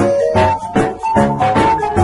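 Background music: a bouncy tune with a steady beat, about two and a half beats a second, under bright pitched notes.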